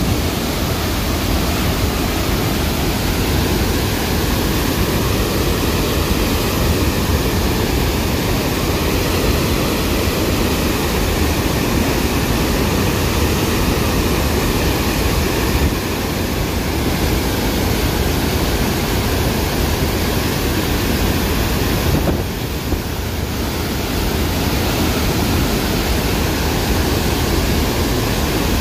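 Flood water rushing out through the opened gates of a dam spillway and crashing into the river below: a loud, steady rush of water.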